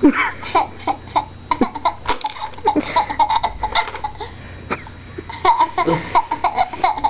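Young child laughing in many short, repeated bursts.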